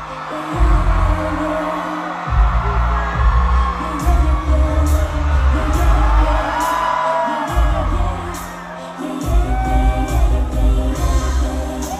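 Live pop concert sound: female singers performing over a heavy bass-driven backing track, with the bass dropping out briefly twice.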